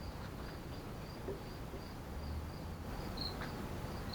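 Cricket chirping steadily in the background, about three high chirps a second, with a few faint small clicks.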